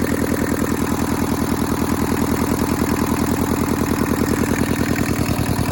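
Hinomoto E150D tractor's Toyosha S88 diesel engine idling steadily, with an even, rapid chug.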